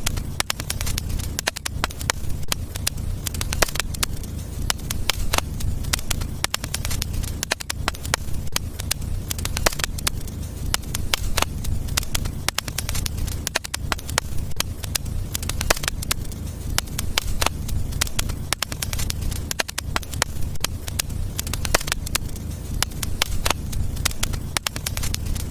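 Wood fire burning in a fireplace, crackling with frequent sharp irregular pops over a steady low rumble.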